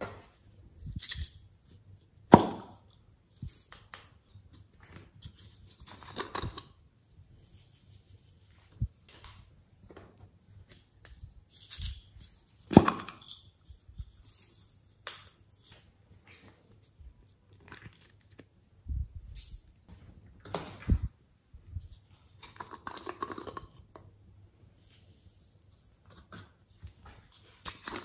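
Small plastic bottles of foam beads and glitter being opened and shaken out onto slime: scattered plastic clicks and knocks with short rustling pours of beads. Two sharper knocks stand out, about two seconds in and near thirteen seconds.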